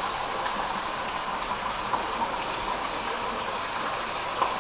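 Steady rushing hiss of background noise, even throughout.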